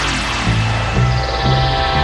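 Electronic background music: sustained synth tones and bass notes in a build-up, with a falling sweep.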